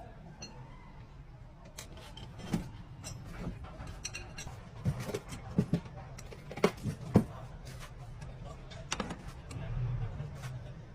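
A series of sharp clinks and knocks, several close together in the middle, over a low steady hum.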